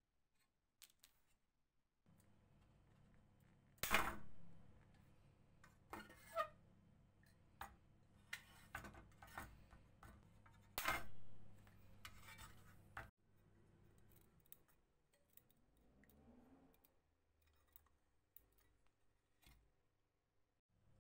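Small metal flashlight parts being handled and fitted together: scattered clicks and light metallic clinks, with two louder clanks about four and eleven seconds in. A faint low hum runs under the first half.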